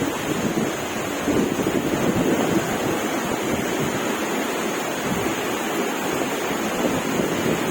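Heavy rain pouring down in strong wind, a steady loud rush of noise, with wind buffeting the microphone.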